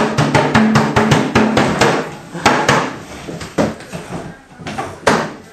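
A fast drum roll, about six to seven strikes a second, that stops about two seconds in, followed by a few separate knocks and thumps.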